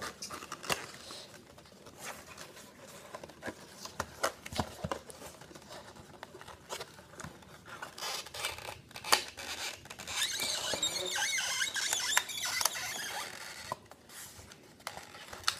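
Handling of a model lorry's cardboard box: small taps and scrapes of card as it is opened, then a louder stretch of rustling and scraping about eight seconds in, lasting several seconds, as the model is slid out of the box.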